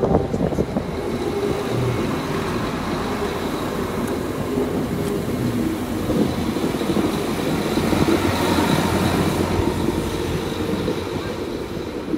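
Alstom Coradia LINT diesel railcar passing close by, its diesel engine running and wheels rolling on the rails, with a thin high tone over the top. It is loudest past the middle, then eases as the train pulls away.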